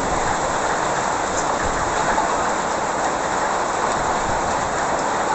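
A hailstorm: heavy rain and hail falling in a steady, dense rush.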